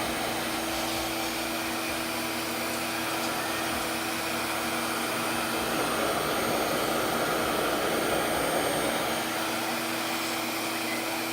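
RevAir reverse-air (suction) blow dryer running steadily: a rush of air with a low motor hum.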